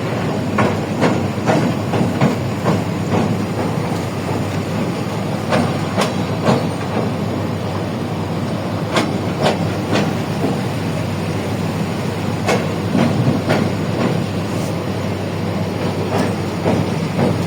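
Train running on the rails: a steady low rumble with sharp wheel clacks over rail joints at irregular intervals, some in quick clusters.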